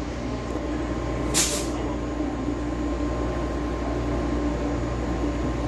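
Metro Cammell electric multiple unit standing at the platform, its onboard equipment humming steadily with a few held tones. A short hiss of released air comes about a second and a half in.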